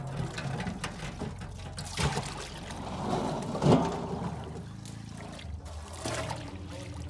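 Soaked rice and water being poured into a perforated metal colander, splashing and trickling through the holes, loudest a little past halfway. Near the end a metal scoop pours more rice and water over it.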